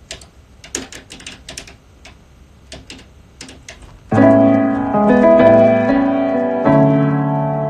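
A few light clicks and taps, then piano chords played and held, starting about four seconds in and changing twice.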